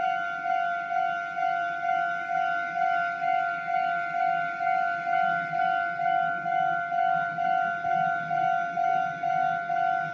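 Japanese railway level crossing warning bell ringing: an electronic two-tone-free single-pitched 'kan-kan' tone struck evenly about twice a second, signalling that a train is approaching and the crossing is closed.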